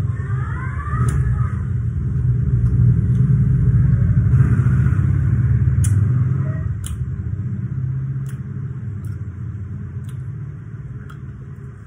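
A loud, low, steady rumble like a motor running, easing off over the last few seconds, with a few sharp wet clicks of lip-smacking and finger-licking.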